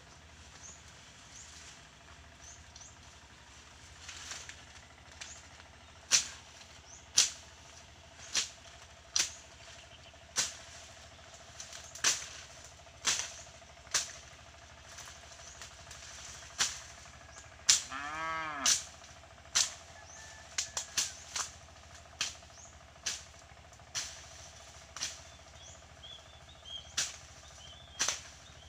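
Grass and weeds being slashed by hand with a blade: sharp swishing chops at about one a second, starting some six seconds in. About eighteen seconds in, a cow moos once, briefly.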